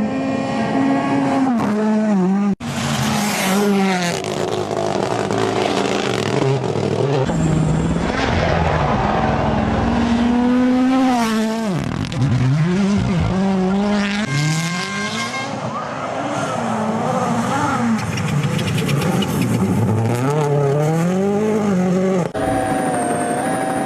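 Rally car engines revving hard, their pitch repeatedly climbing and dropping through gear changes and lifts off the throttle. The sound changes abruptly a few times, as separate clips cut together.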